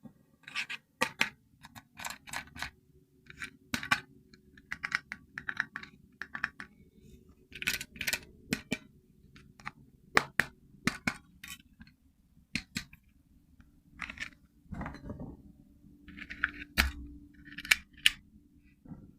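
Hard plastic toy parts and packaging being handled: an irregular run of sharp clicks, taps and short scrapes, over a faint steady low hum.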